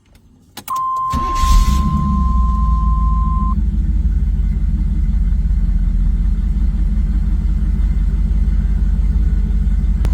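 1987 Chevrolet Camaro IROC-Z's V8 engine starting up, catching about a second in and then running at a steady idle. A couple of clicks come just before it catches, and a steady high tone sounds for about three seconds as it starts.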